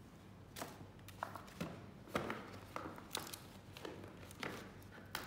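Handling of a small paper shopping bag and its tissue paper as hands open it and reach inside: scattered short crinkles and crackles of stiff paper.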